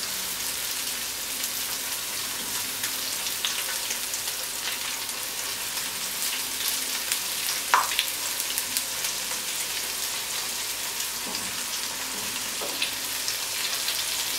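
Flour-dredged fresh anchovies frying in hot olive oil in a frying pan: a steady sizzle with scattered small crackles, and one sharper pop about eight seconds in.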